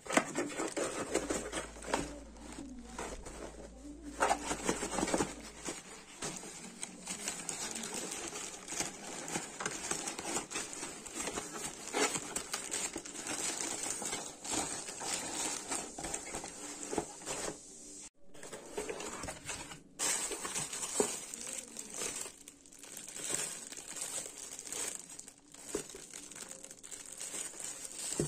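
Hands crinkling and tearing a thin plastic courier mailer bag and handling the cardboard shoe box inside: an irregular run of crackles, rustles and sharp clicks.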